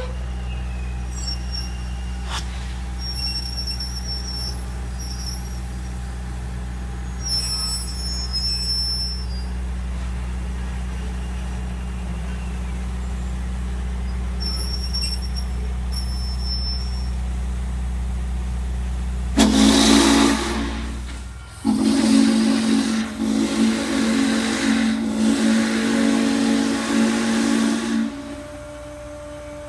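Norfolk & Western J-class steam locomotive No. 611 rolling slowly with a steady low rumble, then its steam whistle blows a short blast about two-thirds in, followed by a long blast of several seconds sounding several tones at once.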